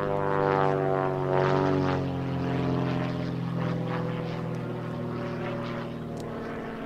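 Super Chipmunk aerobatic plane's piston engine and propeller droning overhead, the pitch sliding down a little early on as it passes, then fading steadily as it flies away.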